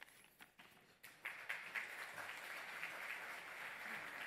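Audience applauding, starting about a second in and then going on steadily.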